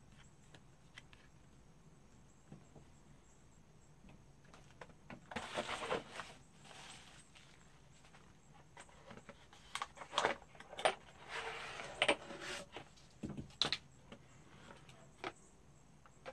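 Cardboard packaging being handled and opened: rustling and scraping of a cardboard box and its lid, with sharp clicks and knocks from the small bottles inside. Faint ticks for about the first five seconds, then two spells of rustling, about five seconds in and again from about ten seconds in, with the clicks bunched in the second spell.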